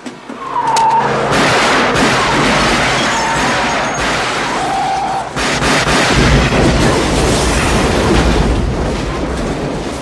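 Movie action sound effects: a vehicle engine running hard with two short tire squeals and sharp cracks like pistol shots, and a deep rumble building over the second half.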